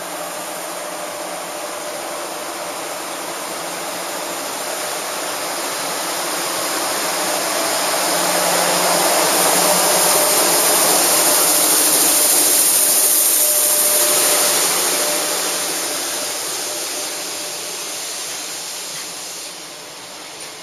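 JR Freight EF66 DC electric locomotive passing slowly alongside with a steady rushing blower noise that swells as it draws level about ten seconds in. It fades as the container wagons roll past behind it.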